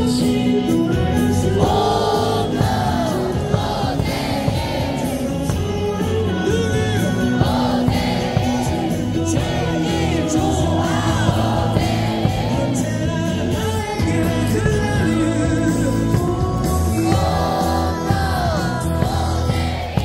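Baseball cheer song playing over the stadium speakers with a steady beat, with many fans in the cheering section singing along.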